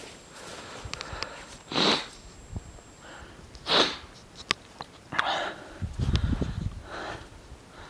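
A person breathing hard while climbing a snowy slope: three loud breaths about two seconds apart. Scattered clicks and crunches of footsteps in snow come in between, and there is a low rumble near the end.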